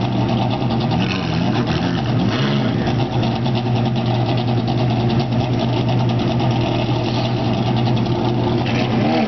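A Ferrari's mid-mounted V8 running steadily at low revs as the car pulls away at walking pace. The revs rise and fall briefly about a second in.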